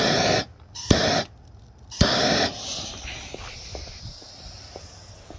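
Handheld blowtorch fired three times in quick succession, each a sharp click followed by about half a second of hissing flame. Then a fainter, fading hiss with a few small crackles as the lit fuse and propellant cup begin to burn.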